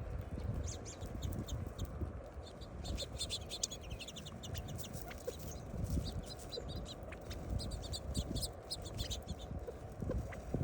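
Small caged birds chirping in quick, repeated runs of short high notes, over a steady low rumble.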